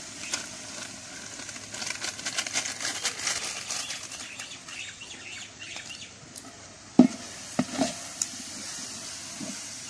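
Onion-tomato masala with biryani spice powder frying in oil in a large metal pot, sizzling softly, while a long-handled ladle stirs and scrapes through it with a scratchy rasp. A few short knocks come about seven to eight seconds in.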